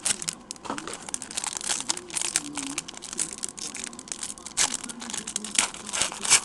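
Foil trading-card pack wrapper crinkling as hands handle it and pull it open, with rapid, irregular crackles that are loudest near the end.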